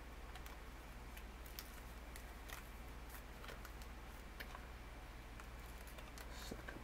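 Faint crinkles and crackles of origami paper being folded and pressed into creases by hand, in scattered irregular ticks over a low steady hum.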